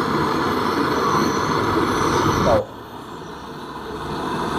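Handheld gas-canister torch burning with a steady hiss as its flame heats a copper refrigerator pipe joint for brazing. About two and a half seconds in the sound drops suddenly, then slowly builds back up.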